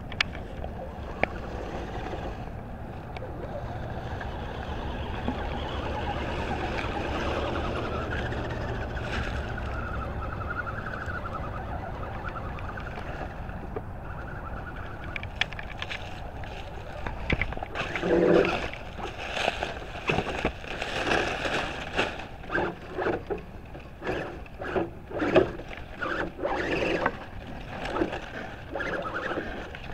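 Electric RC crawler truck's motor whining steadily as it drives over leafy ground. About halfway through, many short irregular splashes follow as the truck churns through a shallow muddy creek.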